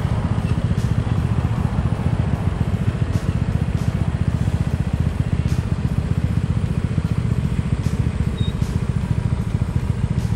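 Small motorcycle engine running at a steady speed while riding, a continuous even rumble.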